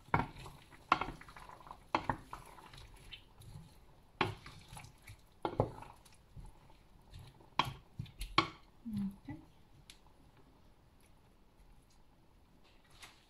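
Wooden spoon stirring a chunky potato curry in a stainless steel pot, knocking against the pot's side in sharp, separate knocks a second or two apart.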